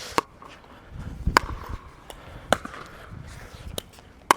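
Pickleball rally: paddles striking the hollow plastic ball, five sharp pops a little over a second apart, the last two closer together.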